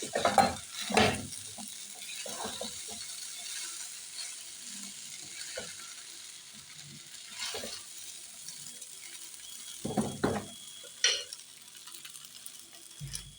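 Rice frying in a pan, stirred with a spoon or spatula: irregular scraping strokes against the pan over a steady sizzle, with a cluster of strokes near the start and another about ten seconds in.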